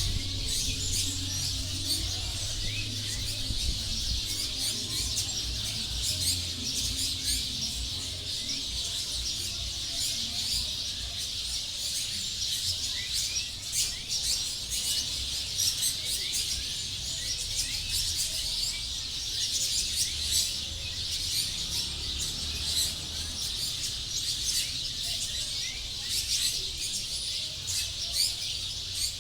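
A flock of dozens of small birds chirping together as they gather to roost in a tree at dusk: a dense, continuous chatter of many overlapping high chirps.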